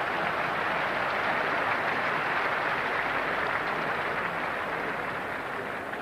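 Cricket ground crowd cheering and applauding, a steady wash of noise that slowly fades near the end.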